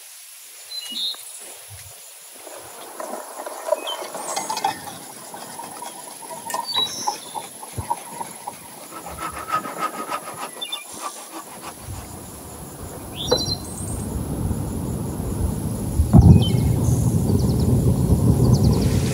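Bowls and utensils being handled with light clicks and rustling, with a few short high chirps. From about two-thirds of the way in, a wood fire burns in a stove as a steady rushing noise that grows louder at about 16 seconds and is the loudest sound.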